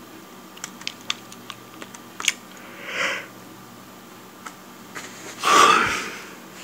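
A string of light clicks from the Dell Latitude D630's touchpad buttons as menus are opened, then two short rushes of noise, the second, near the end, the loudest.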